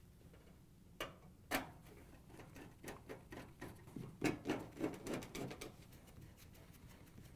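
Faint clicks and ticking of a 1/4-inch hand nut driver setting screws into a dryer's sheet-metal panel: two sharper clicks about a second in, then a run of small irregular ticks that is busiest in the middle.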